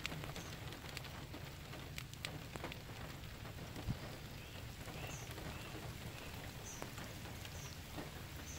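Steady rain falling, an even hiss with scattered sharp drop hits.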